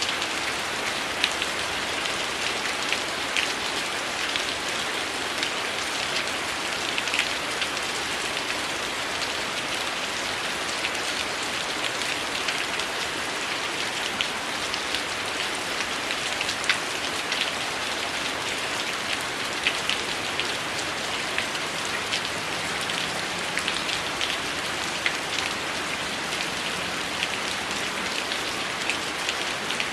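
Heavy rain falling steadily, a continuous hiss broken by frequent small, sharp ticks.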